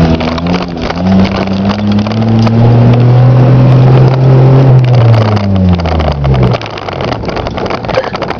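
Car engine heard from inside the cabin, its note climbing as the car accelerates, holding steady for a few seconds, then falling away about six seconds in as the car eases off. Tyre and road rumble from the dirt road runs underneath, with scattered light knocks.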